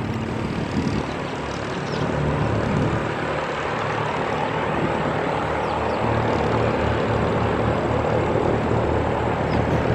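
Small propeller-driven experimental aircraft's engine running steadily at takeoff power during its takeoff roll, growing a little louder partway through.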